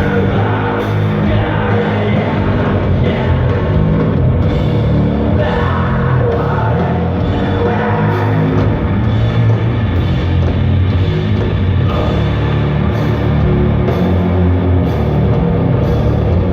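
A doom metal band playing live, loud and unbroken: heavily distorted guitars and bass over a drum kit.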